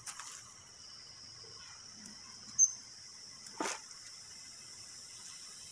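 Steady high-pitched insect drone, with one short, sharp chirp a little before the middle and a brief knock about a second later.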